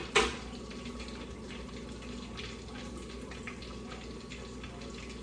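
Battered flounder frying in a pot of hot oil: a steady sizzle with faint crackles throughout. A single sharp knock comes right at the start.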